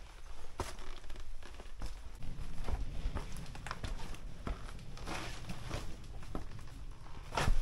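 Footsteps of a person walking along a narrow rocky path: irregular crunching and scuffing steps with rustling, and a louder thump near the end.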